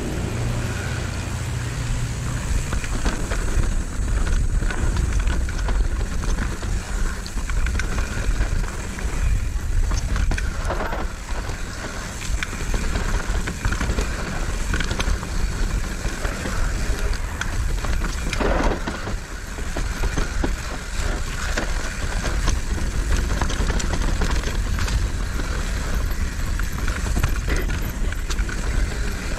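Mountain bike ridden down a dirt trail: steady wind rumble on the helmet-camera microphone with tyre noise and a constant light rattle of the bike over rough ground.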